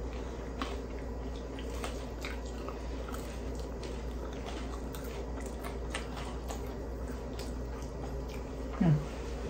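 People chewing and biting thin-crust pizza, with faint wet mouth sounds and small clicks over a steady low hum. A short hummed voice sound comes near the end.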